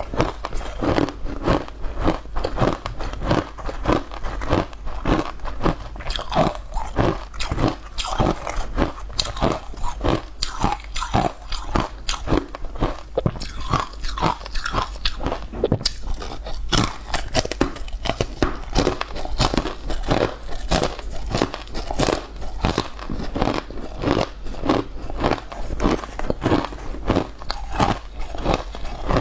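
Close-miked crunchy chewing and biting of crisp food: a steady, rapid run of crunches, several a second.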